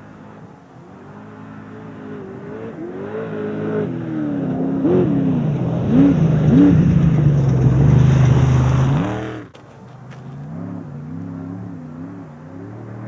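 Off-road race vehicle engine revving hard, its pitch rising and falling with quick jumps in revs. It grows louder to a peak, drops abruptly about nine and a half seconds in, then carries on quieter with wavering revs.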